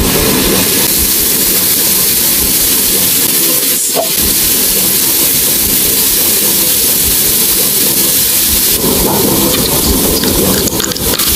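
Sizzling of skewered meat and vegetables grilling: a loud, steady hiss.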